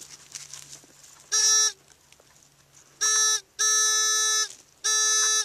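Handheld metal-detecting pinpointer giving its steady buzzing alert tone in four bursts as it is worked through dug soil, signalling a metal target close to the probe tip.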